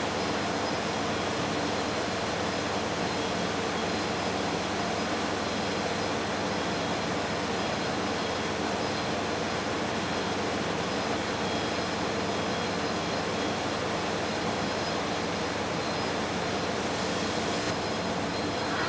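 Large container ship's engines and machinery running as it passes: a steady mechanical drone with hiss and a few faint high whines.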